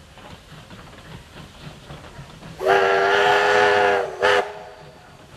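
Steam locomotive whistle sounding for a level crossing: one long blast of about a second and a half, then a short toot, over the faint rumble of the approaching train.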